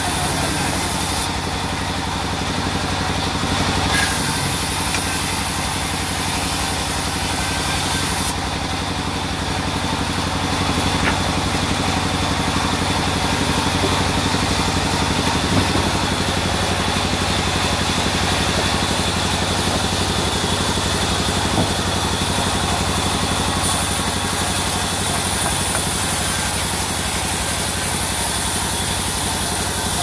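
Large band sawmill running steadily, its blade ripping a wood slab lengthwise.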